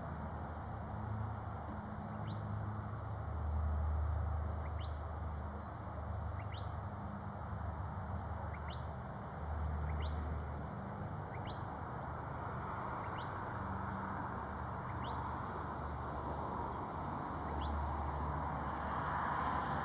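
A bird repeating a short, rising chirp about every two seconds, over a steady hiss and a low rumble that swells and fades.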